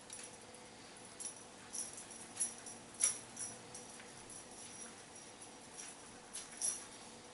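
Small metal jewellery, bracelets and rings, clinking and jingling in about ten short, irregular jingles as the wearer moves, the loudest about three seconds in.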